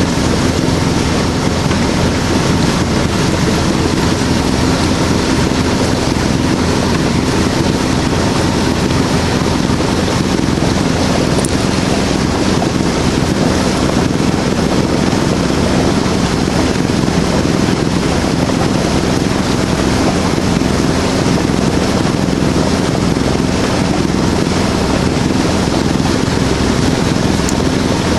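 Sailboat's auxiliary engine running steadily as the boat motors along, a constant drone, with wind noise on the microphone over it.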